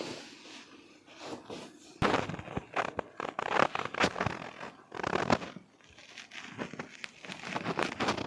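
Joints cracking during chiropractic spinal manipulation: a run of sharp, irregular pops and crackles starting about two seconds in.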